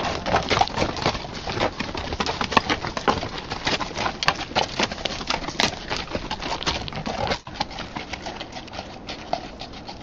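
Hooves of a string of pack mules clopping on a rocky trail as they pass close by: a quick, uneven run of sharp clops that thins out and drops in level after about seven seconds.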